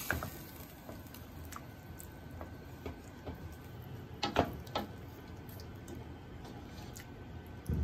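Faint scattered ticking and crackling from salmon and vegetables cooking in sauce in a stainless steel pot, with a few sharper clicks about four and a half seconds in and a dull knock near the end.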